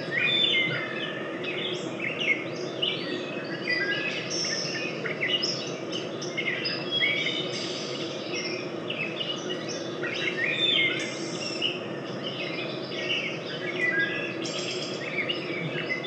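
Recording of a dawn chorus played back in a room: many birds singing and calling at once, a dense overlapping tangle of chirps and trills, over a steady low hum.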